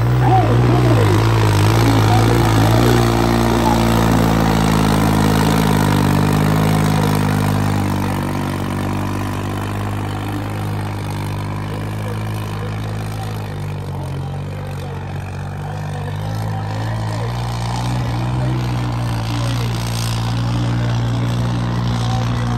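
A heavy engine running, its pitch shifting over the first few seconds and then holding steady.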